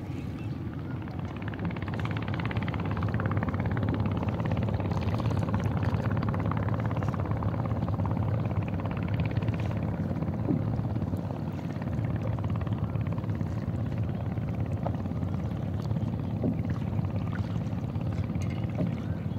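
A boat engine droning steadily, swelling a couple of seconds in and then holding, with water splashing against a wooden hull.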